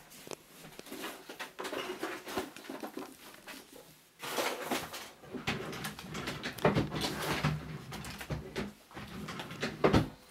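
Irregular rustling and knocking of things being rummaged through and handled, louder from about four seconds in, with a sharp knock near the end.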